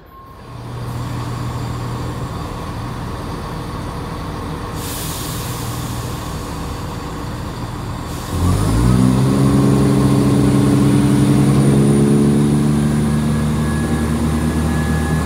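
Diesel train engine idling with a low hum, a hiss of air about five seconds in, then about eight seconds in the engine powers up: its note climbs quickly and then holds steady and louder.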